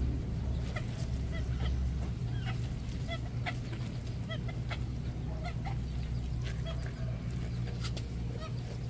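Poultry calling in short, separate calls, several each second, over a low steady rumble, with a few scattered clicks.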